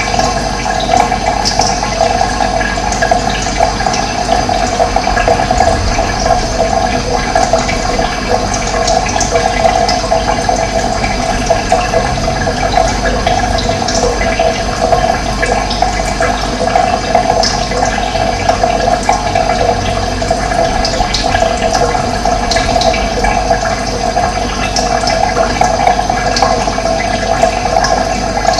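Steady rush of running water, with short high chirps of birds scattered through it.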